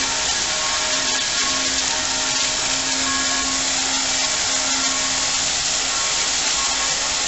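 Water from a fountain's row of frothy foam jets falling back and splashing into the basin, a steady rushing hiss.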